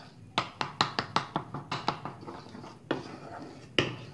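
Ladle knocking and scraping against the side of a pan while stirring white sauce: a quick run of about five taps a second for a second and a half, then two single knocks, the last the loudest.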